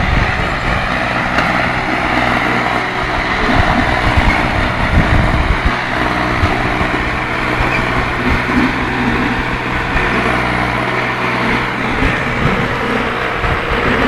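Two diesel tractors, a Mahindra 275 and a Massey Ferguson 5245, running steadily under heavy load as they pull against each other in a tug-of-war, their rear wheels spinning in the dirt.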